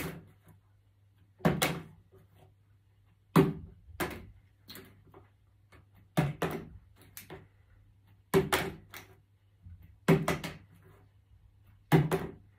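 A plastic drinks bottle partly filled with liquid flipped again and again onto a wooden table. It lands with a thud about every two seconds, often followed by a quick second knock as it tips over.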